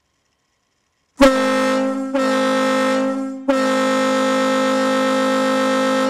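Kahlenberg D2 air-powered ship horn blowing a deep steady tone in three blasts run close together, starting about a second in; the first two are short and the third is held long.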